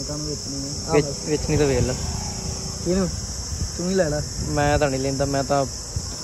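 Steady high-pitched drone of insects, such as cicadas or crickets, with short voice-like sounds over it.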